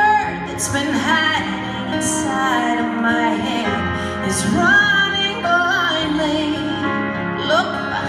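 A woman singing a slow song live into a microphone, backed by a band with long held chords, heard through the hall's sound system.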